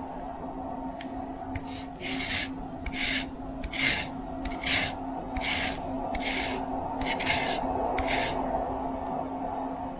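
Lemon rind scraped against a KitchenAid etched fine grater in about ten firm strokes, roughly one every 0.7 s, starting about two seconds in and stopping near the end. The grater needs hard downward pressure to take the zest off.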